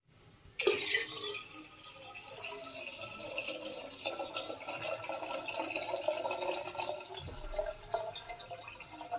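Water pouring into a vessel and filling it, starting suddenly about half a second in and running steadily.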